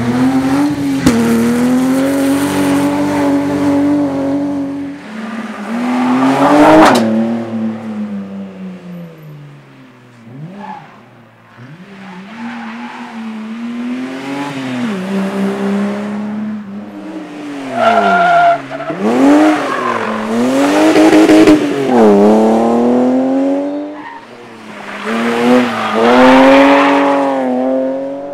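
BMW E30 325i rally cars with 2.5-litre straight-six engines driven hard on the stage, one car after another. The engine note rises and falls sharply as the cars rev, shift and lift. The loudest moments come about six seconds in, again around twenty seconds, and near the end.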